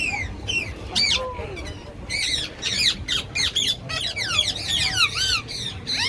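A crowd of aviary birds squawking and screeching in quick, overlapping calls that thicken from about two seconds in.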